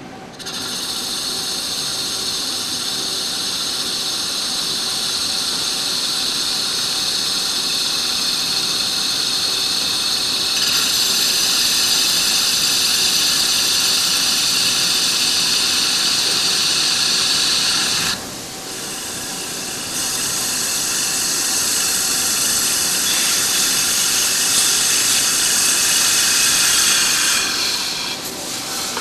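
Muratec Murata MW400 CNC lathe taking a facing cut across a large spinning disc: a loud, high-pitched, steady cutting noise with several held tones. It gets louder about a third of the way in, breaks off for about two seconds past the middle, then resumes and stops near the end.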